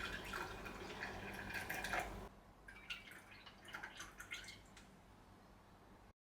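Faint liquid dripping and trickling with light clicks and clinks, cut off abruptly about two seconds in; a few fainter clicks follow, then quiet room tone.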